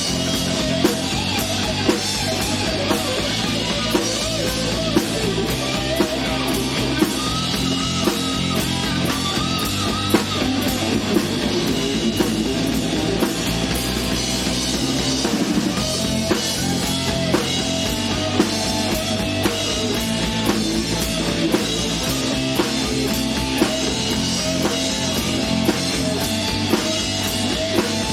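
Live rock band playing on stage: electric guitar, bass and drum kit, with a steady drum beat.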